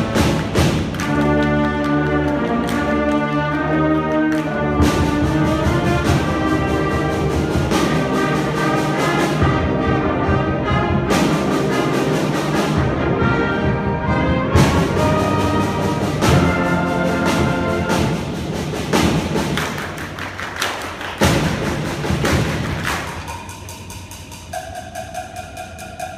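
Eighth-grade concert band playing, sustained brass chords over regular drum hits, growing quieter and thinner near the end.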